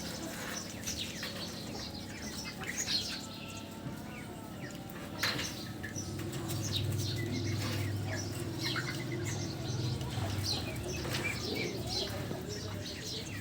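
Parrots chirping with many short, high calls, and some wing flapping. A low steady hum runs underneath from about six seconds in until near the end.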